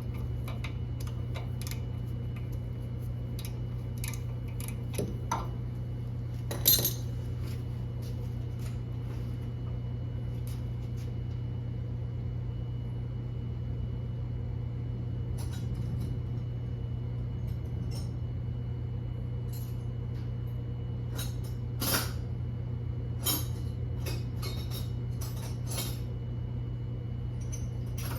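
Scattered metallic clinks and taps of hand tools and car parts being handled during axle replacement work, over a steady low hum.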